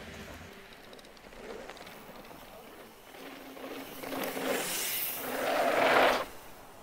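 Mountain bike riding on a dirt trail: tyre and wind noise that builds from about four seconds in, peaks, then drops off sharply just after six seconds.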